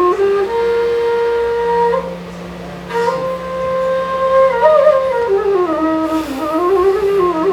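A flute playing a slow melody that holds long notes and glides between them, over a steady low drone: the instrumental opening of a Nepali folk song.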